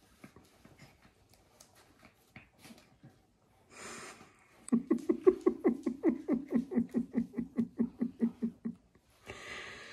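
A woman laughing: a long run of quick pitched 'ha' pulses, about five a second, with a sharp breath drawn just before and after. Before it, faint rustling and scuffling of two dogs wrestling on a fleece blanket.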